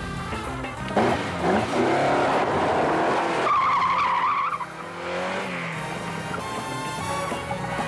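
Car engine revving hard and tyres squealing for about a second near the middle as the car skids off a gravel shoulder and pulls away fast, with chase music playing underneath.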